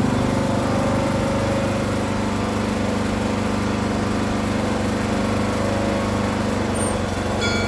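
Troy-Bilt Pony lawn tractor engine running steadily as the tractor drives along.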